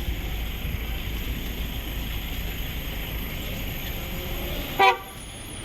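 Steady low rumble of street traffic, then a single short, loud vehicle horn toot near the end.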